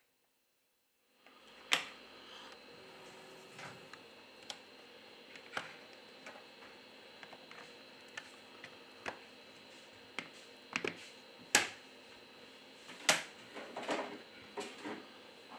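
Scattered sharp clicks and light taps, about a dozen, with a few louder snaps and a quick cluster near the end, as a Huawei Y6P smartphone's back cover is pressed down around its edges and its clips snap into place. A faint steady hum runs underneath.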